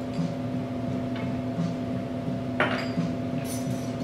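A clink of a metal jigger or glass set down on the bar counter about two and a half seconds in, followed by lighter clinking, over a steady background hum.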